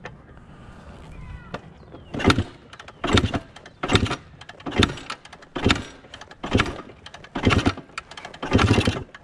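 A 1979 Yamaha IT 250's two-stroke single being kick-started over and over, eight kicks in quick, even succession starting about two seconds in, without the engine catching. It is being kicked over without the choke on, and it is too cold to fire.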